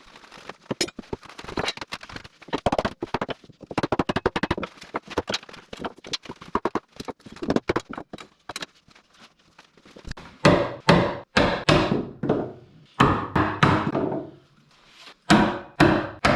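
Oak timber-frame brace being knocked into its mortise pocket during a dry fit: a run of quick light knocks on wood, then heavier blows in quick groups from about ten seconds in.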